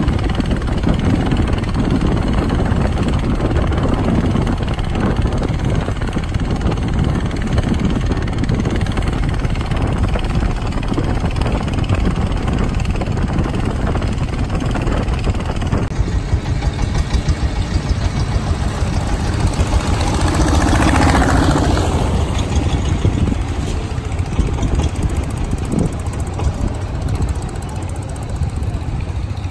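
A motor engine running steadily, loud and even, with a change in the sound about sixteen seconds in and a brief swell a few seconds later.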